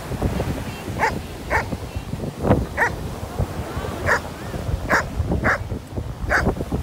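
A dog barking: about eight short barks at uneven intervals.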